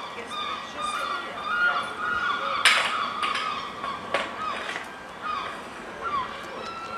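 Birds calling with many short, repeated calls, some dropping in pitch, over several sharp clicks or knocks, the loudest about two and a half seconds in.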